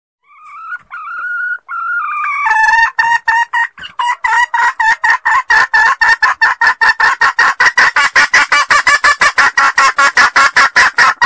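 Female Sumatran junglefowl call, the hen's call used as a trapping lure. A few short notes, then from about two and a half seconds a fast, even run of loud clucks, about five a second, that cuts off suddenly at the end.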